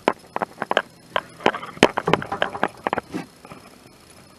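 Irregular run of light clicks and knocks, like small hard parts being handled and knocked together, stopping about three seconds in.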